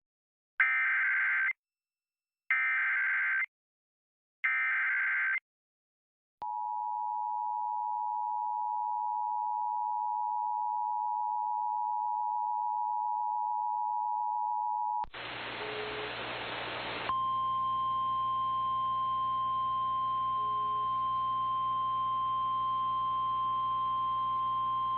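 Emergency Alert System broadcast: three short warbling SAME data bursts about a second apart, then the steady two-tone EAS attention signal for about eight seconds. After a few seconds of radio hiss, a single steady alert tone sounds through the static.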